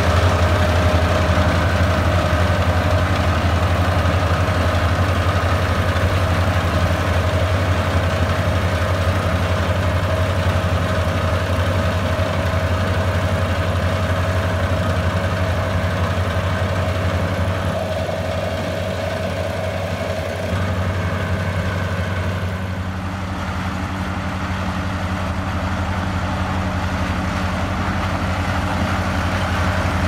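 Kubota SR40 tracked combine harvester working a rice crop: a steady low engine drone, with a high whine from the running machinery that drops out about three-quarters of the way through.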